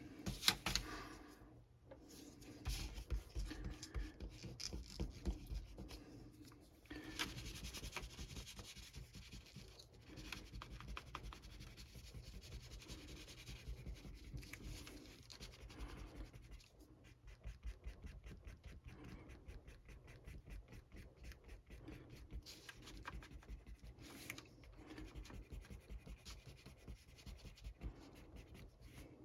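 An eraser rubbing back and forth on a comic book's paper cover to lift grime, in quick, faint scrubbing strokes.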